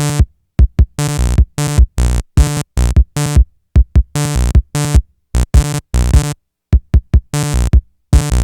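Electronic music: a drum-machine beat with short synthesizer stabs, each cut off sharply into silence, in a quick repeating rhythm.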